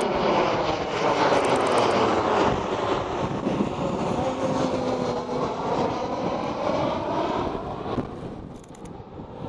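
Jet airliner passing low overhead. Its engine noise is loud, with a whine that slides down in pitch as it goes by, and it fades away near the end.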